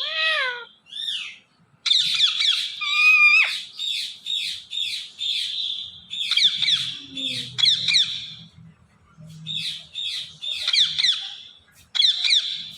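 Pet parrot screeching and chattering: shrill calls and rapid harsh chatter in several bursts with short gaps, with one clear whistled note a few seconds in.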